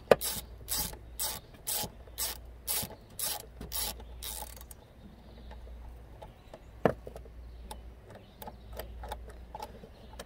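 Hand ratchet with a 10 mm socket clicking about twice a second as it backs out a 10 mm engine-cover bolt; the clicking stops a little under five seconds in. Faint scattered ticks follow, with one sharper knock near seven seconds.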